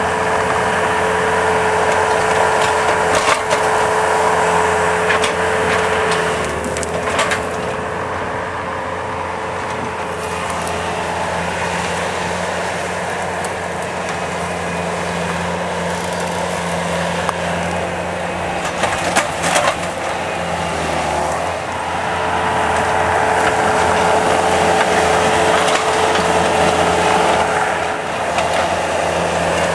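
Skid loader engine running under load, its pitch dipping and rising, with several sharp cracks of wood breaking as a tree is pulled out roots and all by the Extractor tree-puller attachment.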